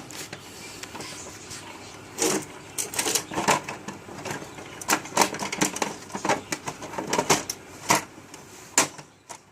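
Irregular plastic clicks, knocks and snaps from an HP LaserJet 1200's casing and cover being fitted back on by hand, with a busy run of clicks in the middle.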